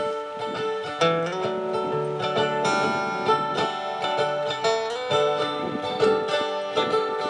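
Acoustic plucked-string accompaniment, mainly guitar, playing a song's instrumental introduction, with a chord change about every second and no voice.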